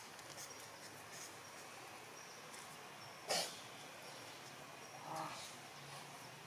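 Long-tailed macaque making a short, sharp call about three seconds in, then a briefer, softer call about two seconds later.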